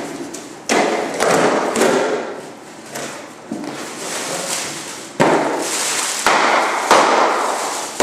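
Thumps and rustling as a cardboard package is handled and opened: several sudden knocks, each trailing into a noisy rustle.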